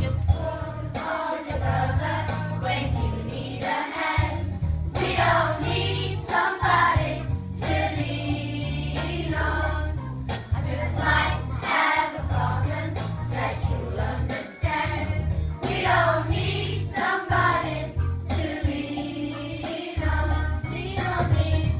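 Primary-school children's choir singing together over an accompaniment with a steady bass line.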